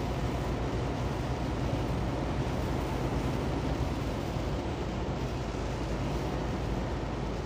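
Steady drone inside a semi-truck's cab at highway speed in heavy rain: the engine's low rumble mixed with the hiss of tyres on the flooded road and rain on the truck.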